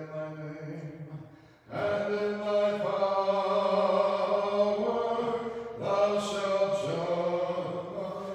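Unaccompanied Orthodox liturgical chant from the Vespers service: sung phrases held on sustained notes, with a short pause between phrases about a second and a half in.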